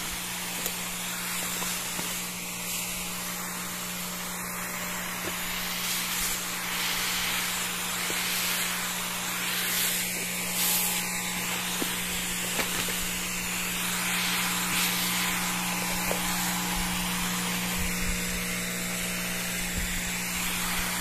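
Homemade battery-powered electric sprayer pump running steadily with both of its motors on, a low, even hum under the hiss of fine spray from the nozzle.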